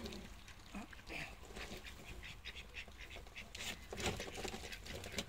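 Broody bantam hen shifting on her nest, rustling the straw and tucking eggs under her with scattered small clicks and rustles, with a few soft low clucks.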